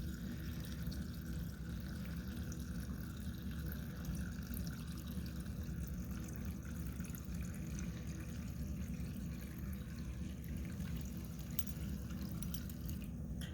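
Water-contaminated gasoline draining from a generator's fuel line, dripping and trickling steadily into a container.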